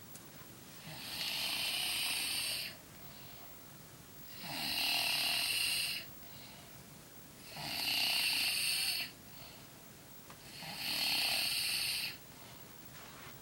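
A sleeping person snoring hard: four long snores, each about a second and a half, coming about every three seconds with quiet breaths in between.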